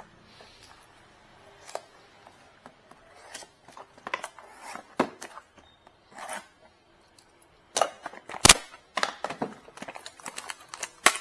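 Plastic ink bottles being handled and set down on a work surface: scattered clicks and knocks with light rustling, the sharpest knock about eight and a half seconds in.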